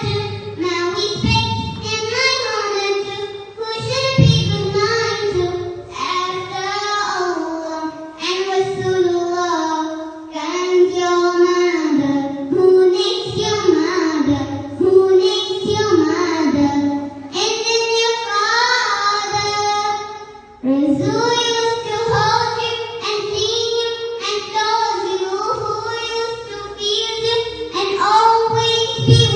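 A child singing a song in phrases, with a brief pause about two-thirds of the way through.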